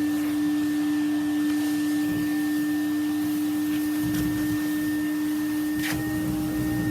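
Vacuum cleaner running with a loud, steady hum, its nozzle being drawn through long hair to suck out sanding dust; a rougher low rumble joins about four seconds in, and there is a short click near the end.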